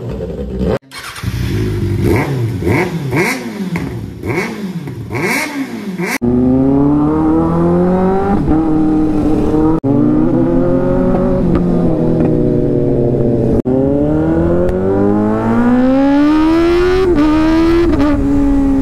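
Kawasaki Ninja ZX-6R's inline-four engine, very loud. First comes a series of quick free revs, each rising and falling back, then on the move come long climbs in engine pitch under hard acceleration, with a gear change near the end. It comes in short clips joined by abrupt cuts.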